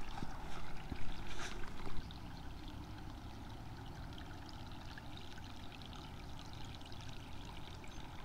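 Faint steady trickling of water, with a few light clicks in the first two seconds.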